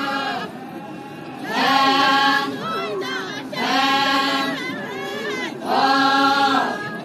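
A group of women singing a folk chant together, unaccompanied: loud held phrases come about every two seconds, with softer singing between.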